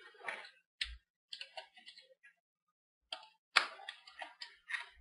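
Plastic hinge-area trim of an HP Mini 1103 netbook being pried loose by hand: a series of light clicks and scratches, the sharpest about three and a half seconds in, with the part not yet free.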